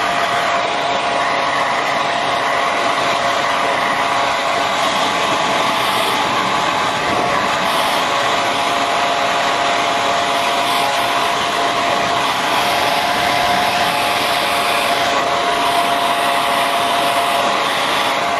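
Handheld hair dryer running steadily on a wet puppy's fur, its fan noise carrying a steady whine.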